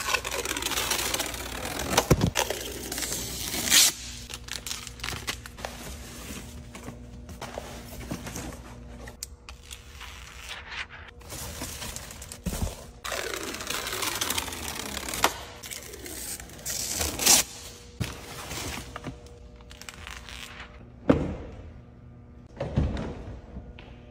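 Protective plastic film and cardboard covers being peeled, torn and pulled off a new car's interior trim, with repeated rustling and crinkling swishes. A few sharp knocks come in between, around two seconds in, near the middle and twice near the end.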